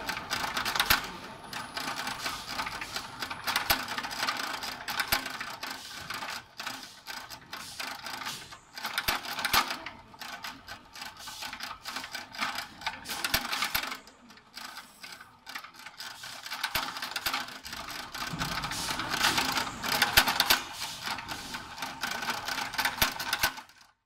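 Bench-top terminal crimping press clacking over and over as its ram comes down on brass terminals fed from a strip, in irregular runs of sharp clicks over a steady machine hum. The sound stops abruptly near the end.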